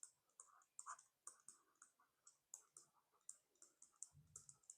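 Faint, irregular clicking of computer keyboard keys, a few keystrokes a second. A brief low hum is heard near the end.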